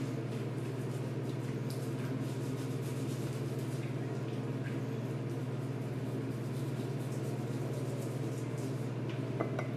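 Shower water running steadily in a small enclosed stall, a constant low hum under an even rushing noise, with a few faint clicks.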